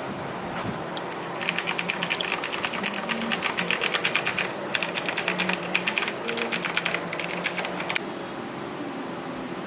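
Fast typing on a K2600 mechanical gaming keyboard with clicky blue switches: a rapid run of key clicks starting about a second and a half in, with two short pauses, stopping about eight seconds in.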